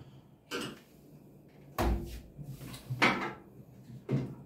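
Knocks and clunks of a washing machine's loading door being unclipped and handled: four separate knocks, the loudest a deep thud a little under two seconds in.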